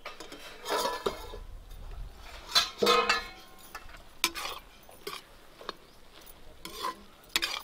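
A metal lid lifted off a kadhai and a steel ladle clinking and scraping against the pan as a potato, capsicum and pea curry is stirred. The clinks come irregularly, the loudest about three seconds in.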